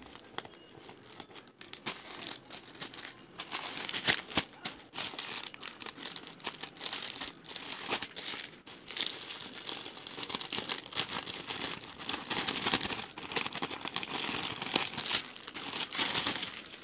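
Plastic courier mailer bag crinkling and rustling as it is cut open with scissors and the folded garment inside is pulled out, with irregular sharp crackles throughout.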